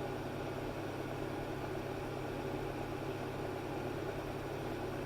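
Slide projector running with a steady hum from its cooling fan and motor.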